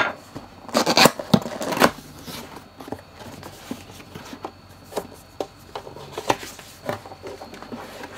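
Cardboard box being opened and unpacked: flaps and a card insert pulled open with papery scraping and rustling, loudest in the first two seconds, then occasional light taps and rubs as the contents are handled.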